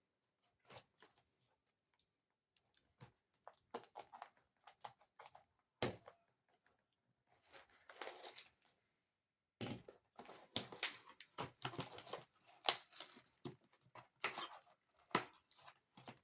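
A heavily taped parcel being opened by hand: packing tape tearing and packaging crinkling in scattered crackles and rips, growing busier in the second half.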